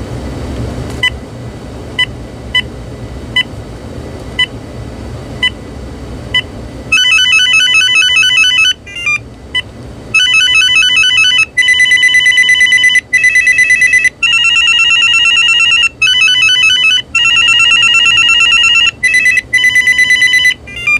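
Vtech CS6124 DECT 6.0 cordless handset beeping at each key press as its menu is stepped through. Then, from about seven seconds in, it plays loud electronic ring patterns, one ringer tone after another, each lasting a second or two as the tones are previewed in turn.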